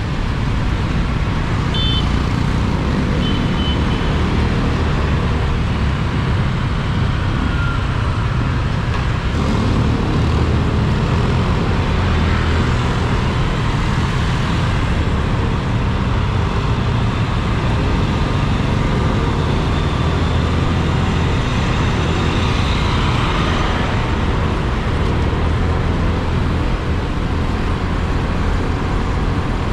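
Motorcycle riding along: engine running under steady wind rush and road noise over the microphone. A few short, high beeps sound in the first few seconds.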